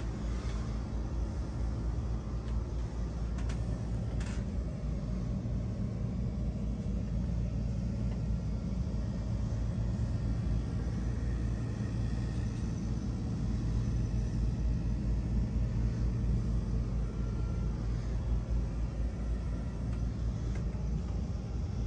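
A steady low rumble with a faint hum beneath it, and a couple of light clicks about three to four seconds in.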